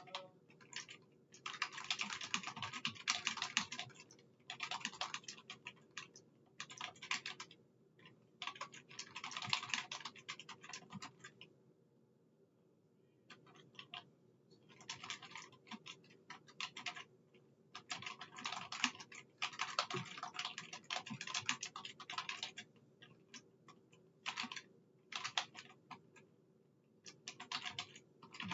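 Typing on a computer keyboard: quick runs of keystrokes broken by several short pauses, the longest about twelve seconds in.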